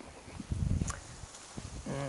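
Heavy footsteps and rustling on dry leaves and branch litter close to the microphone, loudest about half a second in, with a few small snaps. Just before the end a low, steady-pitched hum-like sound begins.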